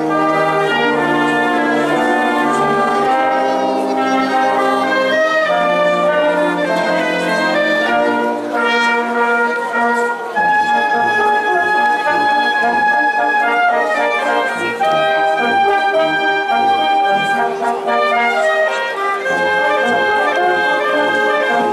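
Wind band playing a tune: clarinets and saxophones with trumpets, trombone, horns and sousaphone in sustained chords and melody. The phrase breaks off briefly about ten seconds in and a new one starts with high held notes.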